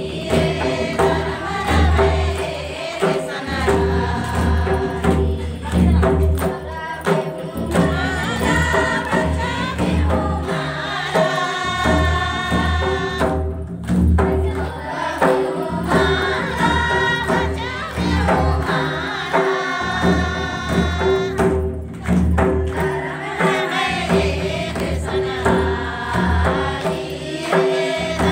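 A group of voices singing a Kurukh devotional bhajan together, with a two-headed barrel drum played from the shoulder beating a steady rhythm and hands clapping along.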